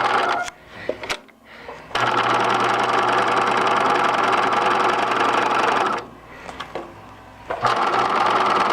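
Bernina 1005 electric sewing machine run on its foot pedal, the motor and needle going at speed in three runs: briefly at the start, for about four seconds from two seconds in, and again from about seven and a half seconds in. Small clicks fall in the pauses. The machine is running and appears to work.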